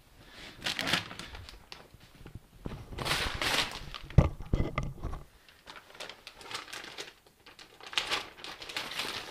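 Packing paper crinkling and rustling in irregular bursts, with one knock about four seconds in.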